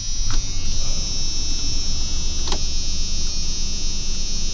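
Old pickup's engine freshly started and idling steadily and smoothly, with a thin high whine over the low drone. It runs with no misfire now that its ignition system has been repaired and its exhaust leak fixed.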